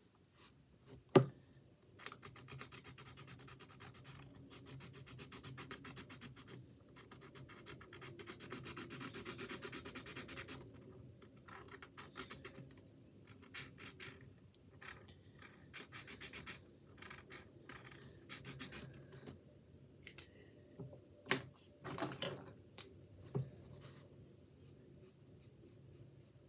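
A colouring tool scratching on canvas: fast back-and-forth scribbling strokes for several seconds, then shorter, separate strokes. There are a few sharp knocks, the loudest about a second in and two more near the end.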